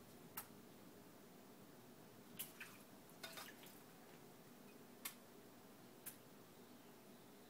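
Quaker parakeets bathing in a shallow dish of water, their wings and bodies making short splashes: about six brief splashes and drips, spread out over several seconds.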